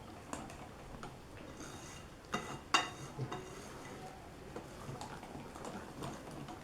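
Utensil clinking and scraping against a mixing bowl while flour is worked into cake batter, with two sharper clinks about two and a half seconds in.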